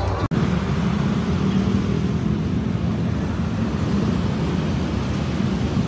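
Steady city street traffic noise, starting after a sudden cut just after the start.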